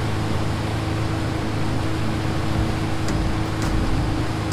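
Wake boat running steadily under way: a steady engine drone under the rushing noise of water churning off the hull and wake.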